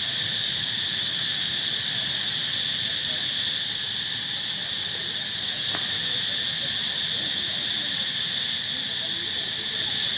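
Steady, high-pitched insect chorus droning without a break, with one faint click about six seconds in.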